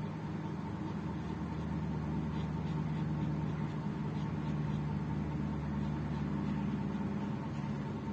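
Steady low mechanical hum with a faint hiss, holding level throughout, with a few faint soft ticks over it.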